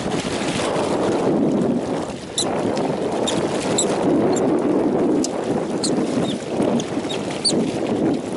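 Mink giving a string of short, high-pitched squeaks, starting about two seconds in, over the steady wash of lake water against shoreline rocks and some wind on the microphone.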